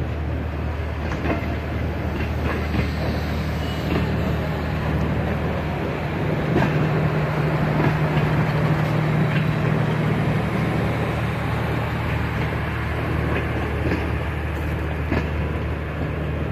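Passenger coaches of a departing train rolling past at close range, wheels giving occasional sharp clicks over rail joints, over a steady low diesel drone.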